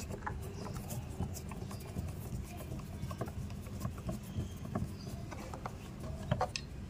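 Phillips screwdriver backing a screw out of a plastic car door trim panel: a run of small, irregular clicks and ticks as the screw turns and the plastic trim is handled, with a few sharper clicks near the end.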